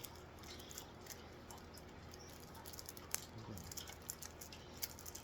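Soft, irregular clicks and rustles of cards and a booster pack being handled, with one sharper click about three seconds in.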